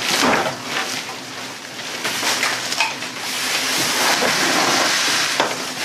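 Plastic wrapping crinkling and rustling as a heavy roll of artificial turf is unwrapped and handled, with small crackles throughout.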